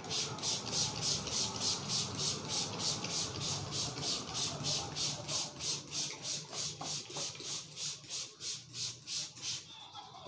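Brisk rhythmic rubbing of hands through hair and scalp during a head massage: a hissing rustle at about four strokes a second that stops shortly before the end.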